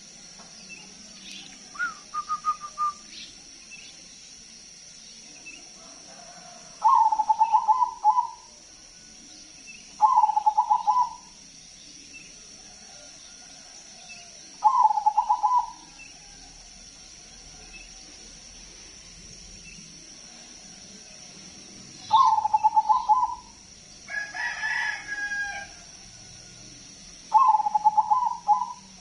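Zebra dove (perkutut) singing its rapid, stuttering cooing phrase six times, each burst about a second long with a few seconds between, the first fainter and higher. A different, higher call from another bird comes in between the last two phrases.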